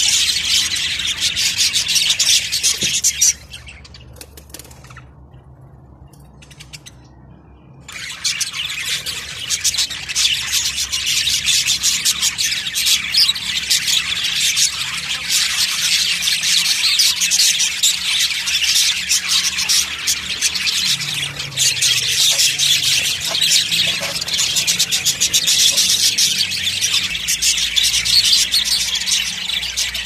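A flock of budgerigars chattering, with many rapid chirps overlapping. The chatter drops away for about four seconds near the start, then comes back at full strength.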